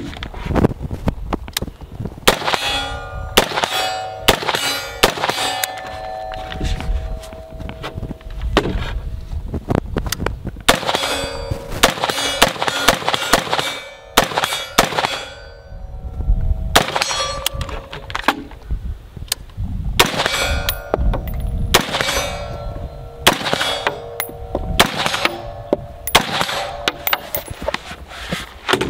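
Bear Creek Arsenal BC-15 AR-15 rifle firing many shots at an uneven pace, with a brief lull partway through. Most shots are followed by the clang and ringing of steel targets being hit.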